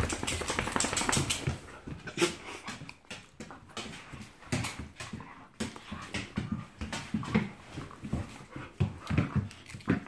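A dog making short whimpers and other play noises in quick, irregular bursts while it is being handled, with rustling and light knocks of fur and clothing.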